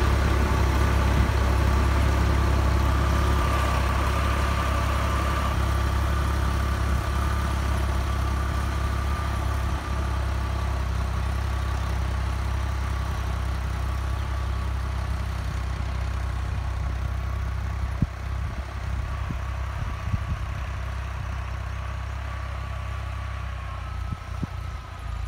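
Ghazi 480 tractor's diesel engine running steadily under load while driving a rotavator that hoes between cotton rows, with a steady whine above the engine note. The sound slowly fades as the tractor pulls away.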